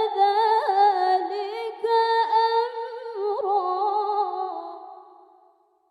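A woman's solo voice chanting a Quran verse in melodic tilawah style, unaccompanied, with long ornamented held notes on "ba'da dhalika amra". The line wavers and tapers, fading out about five seconds in.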